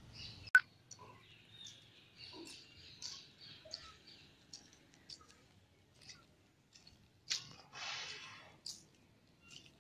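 Faint, scattered bird chirps outdoors, with a sharp click about half a second in and a louder, noisier patch about seven seconds in.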